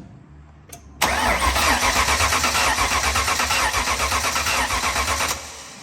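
Starter motor cranking a built Ford 5.0 V8 for about four seconds with an even, pulsing turn-over. The engine does not catch and stops when the key is released. It has no spark, as the owners are checking.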